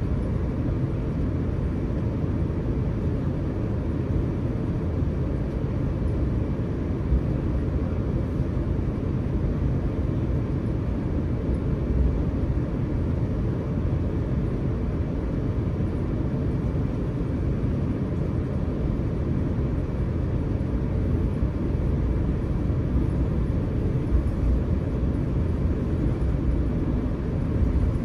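Steady low rumble in the cabin of an Airbus A350-900 taxiing before take-off, its Rolls-Royce Trent XWB engines running at low thrust.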